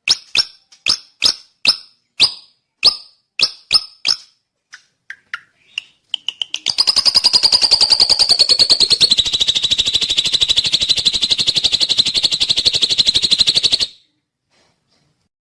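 Drongo calling: a run of sharp, clicking notes about two a second, a few softer notes, then about seven seconds of a very fast rattling trill that drops a little in pitch partway through and cuts off suddenly.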